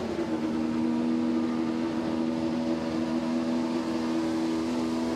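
2019 Ford GT's twin-turbo 3.5-litre V6 running at low, steady revs as the car rolls slowly at walking pace. The hum holds one pitch throughout.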